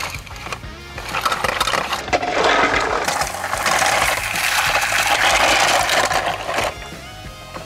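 Plastic Tomica toy car-carrier truck pushed by hand through dry leaves and grass onto rough concrete, its wheels and hollow body rattling and crunching. It builds about a second in, is loudest from about two seconds until near the end, then stops.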